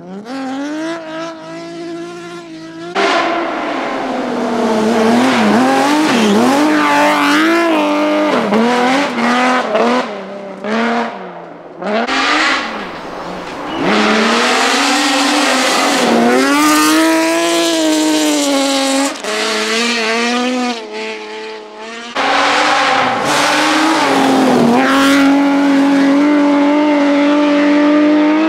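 BMW rally car engines driven hard, revving up and falling back through quick gear changes over several separate passes, each loud and rising in pitch as the car accelerates.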